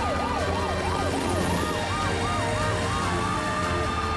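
Several emergency sirens from the cartoon rescue vehicles sounding together: a quick rising-and-falling wail, about three sweeps a second, over slower up-and-down siren tones.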